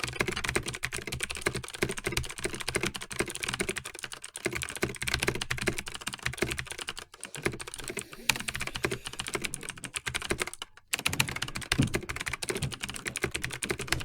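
Fast typing on a computer keyboard in a timed typing test, a dense stream of key clicks at about 120 words a minute that starts abruptly, with a brief break about eleven seconds in.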